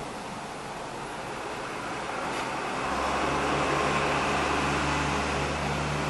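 Steady machine hum. A deeper, even hum comes in about three seconds in and carries on.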